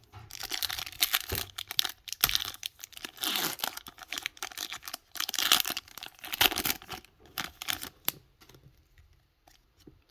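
Foil booster pack wrapper crinkling and tearing open, a run of rustling bursts that die down about eight seconds in.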